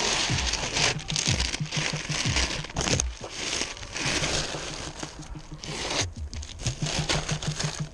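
Newspaper masking and tape being pulled off car windows, crumpled, and stuffed into a black plastic trash bag: continuous, irregular paper crinkling and plastic bag rustling.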